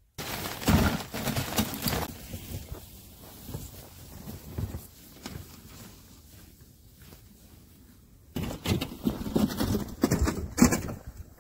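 Footsteps crunching over snow while a sled is pulled along. The crunches come in irregular clusters, loudest about a second in and again for the last few seconds, with a quieter stretch between.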